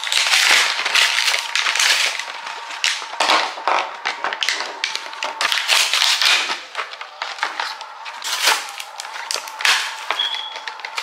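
Plastic blister packs of plug-in air freshener refills being torn open by hand: irregular crinkling and crackling of the stiff plastic and ripping of the cardboard backing.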